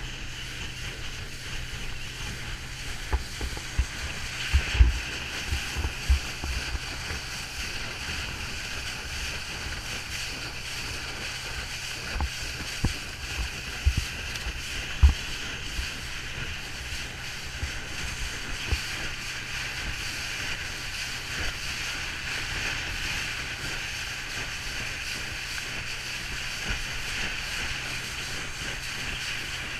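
A motorboat running steadily across open water: a constant low engine drone under steady water and wind rush. Irregular low thumps come in two clusters, a few seconds in and again around the middle.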